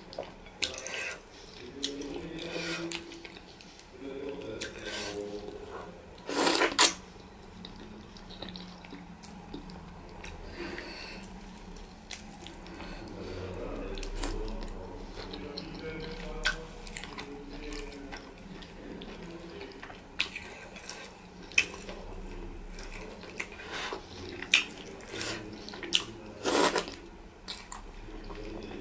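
Close-up wet eating sounds of fufu and soup eaten by hand: mouth smacks, squelches and chewing in quick irregular clicks, with two louder smacks, about six seconds in and near the end.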